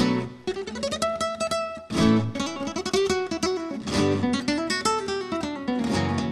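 Background music on acoustic guitar: a run of plucked notes climbing in pitch, then strummed chords struck about every two seconds.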